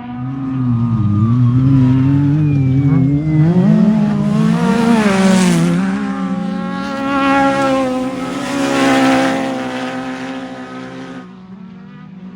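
Off-road race vehicle's engine revving up and down through its gears as it drives by, swelling in loudness about half a second in and dropping away sharply near the end.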